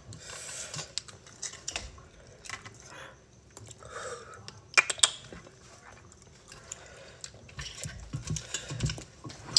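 Metal kitchen tongs clinking and clicking against a ceramic bowl as spaghetti and shrimp are lifted out, in scattered short clicks. The sharpest clinks come about five seconds in.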